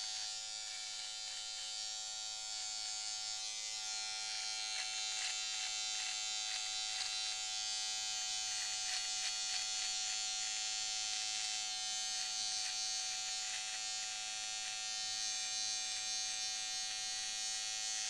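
Electric beard trimmer running steadily, with many short crackles in the middle stretch as its blade cuts the fuzz on the neck below the beard line.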